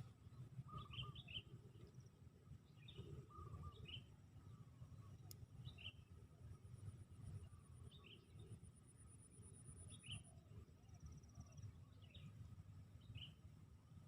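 Faint outdoor ambience: small birds give short chirps about every second, and a high, thin insect trill runs for a few seconds in the middle, over a low rumble.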